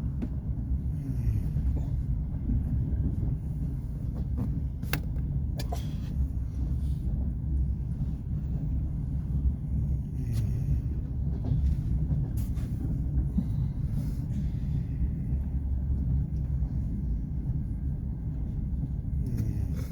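Steady low rumble of a moving passenger train coach heard from inside, with a couple of sharp clicks about five seconds in.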